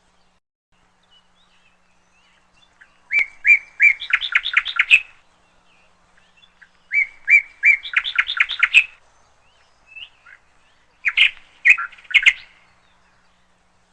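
A songbird singing: twice, a few separate notes that quicken into a rapid trill, followed near the end by a shorter burst of sharp calls.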